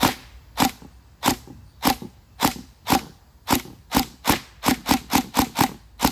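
King Arms PDW airsoft gun firing single shots in quick succession at a phone screen, about sixteen sharp shots, first roughly every half second and then speeding up to about three a second.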